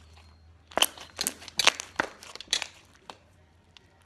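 Slime being pressed and worked, giving a quick run of sharp crackling pops as air bubbles burst, with one last pop shortly after.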